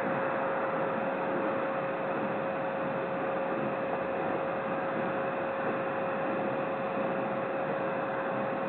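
Steady hiss with a constant, unchanging hum: the electronic noise of an outdoor wildlife camera's microphone and audio feed, with no separate sounds over it.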